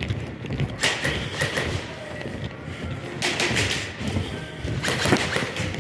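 Airsoft guns firing short bursts of rapid clicks, three bursts: about a second in, a little past the middle, and near the end.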